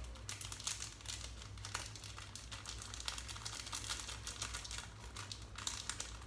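Small plastic sachet of ground black pepper being crinkled and torn open by hand, a run of irregular crackles over a low steady hum.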